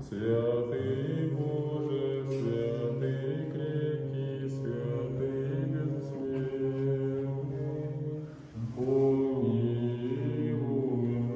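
Orthodox liturgical chanting: voices singing long held notes over a steady low drone, breaking off briefly about eight and a half seconds in and then resuming.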